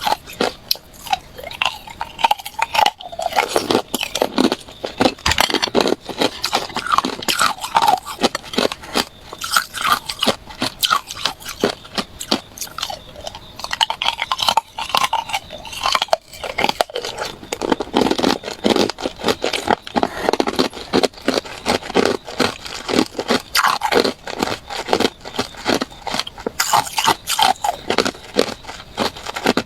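Hard ice being bitten and chewed close to the microphone: a steady run of sharp, irregular crunches and crackles.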